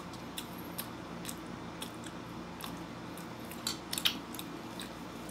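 A metal spoon clicking against a soup bowl a few times, with soft eating sounds in between; the clicks come close together about four seconds in.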